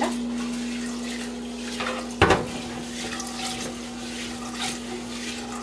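Whole lentils being rubbed and swished by hand in water in a non-stick pot in a stainless steel sink, with small clicks and a sharp knock about two seconds in.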